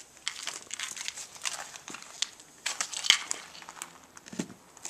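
Plastic sausage wrapper crinkling and rustling in irregular crackles as it is handled and opened for cutting, with a sharp click about three seconds in.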